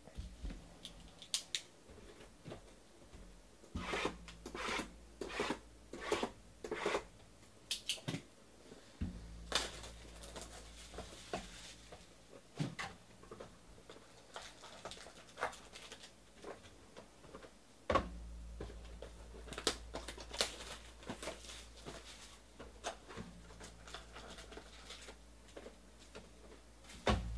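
Cardboard trading-card box being handled and opened by hand: runs of short, sharp scraping and rubbing strokes, with scattered lighter taps and rustles between.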